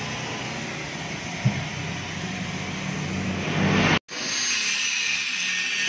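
A steady machine noise with a low hum, growing louder over about four seconds. It stops at a sudden cut, and an electric angle grinder starts running with a high whine against a steel exhaust pipe.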